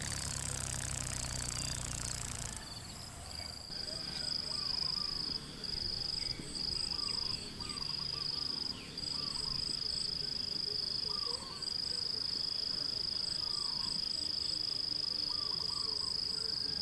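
An insect trilling steadily at a high pitch with a few brief breaks, over faint chirps of small birds. For the first couple of seconds a rough rustling noise covers it.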